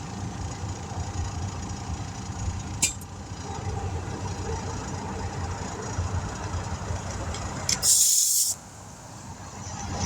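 Air compressor running steadily while building pressure, with a sharp click about three seconds in. About eight seconds in, a loud half-second blast of hissing air, after which the running noise drops off.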